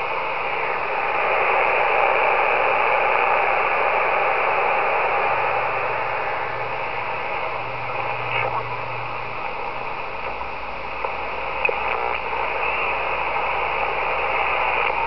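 ICOM IC-718 HF transceiver's speaker giving a steady hiss of static and band noise as the dial is tuned down through the 80-meter band, with no station voices. A few brief faint whistles come through.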